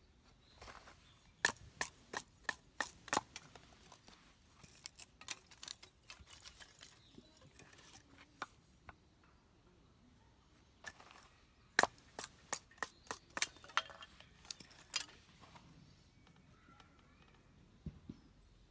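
Mora knife working dry firewood: two runs of sharp, crisp strokes, about three a second, with quieter scraping and ticking between.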